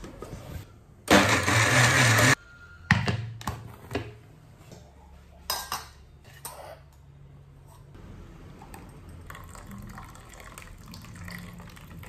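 Steel-jar kitchen mixer grinder (1000 W) running loudly for about a second, grinding grated coconut and green chillies with water. Then several metallic clinks and knocks from the jar and steel vessels, and near the end the quiet trickle of the ground coconut mixture being strained into a steel bowl.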